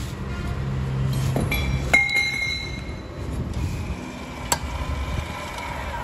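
Metal clinking: two sharp clinks, about two seconds in and again about four and a half seconds in, each with a short ringing tone. A low steady hum runs through the first second or so.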